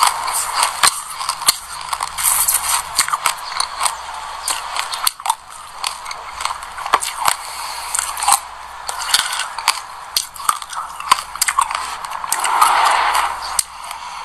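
Close-up ASMR chewing of passion fruit coated in black sesame seeds: a dense run of crisp crunches and clicks as the seeds are bitten and crushed between the teeth.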